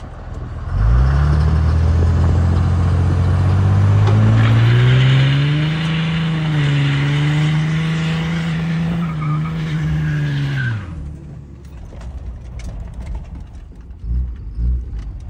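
Cummins turbo-diesel in a Dodge Ram, heard from inside the cab, pulling hard under full throttle: its note climbs steadily, dips once midway at a gear change, then holds before dropping off when the throttle is lifted near the end. A rushing hiss rides over the engine through the hardest part of the pull, and a couple of low thumps follow near the end.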